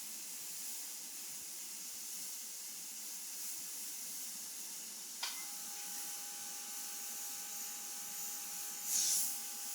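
Airbrush spraying black paint: a steady hiss of air. It swells louder briefly near the end. About halfway through there is a click, and a faint steady tone follows it.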